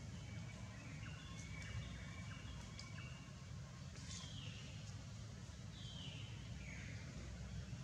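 Faint animal calls: a few short high squeaks that slide downward, about four, six and seven seconds in, over a low steady rumble, with a few light ticks.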